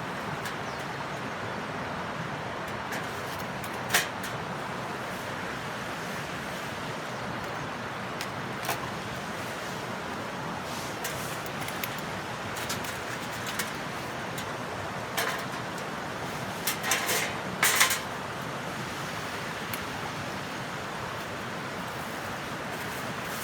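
Wood fire burning in a lidded BBQ stove: a steady rush with a few sharp crackling pops, several close together about two-thirds of the way through.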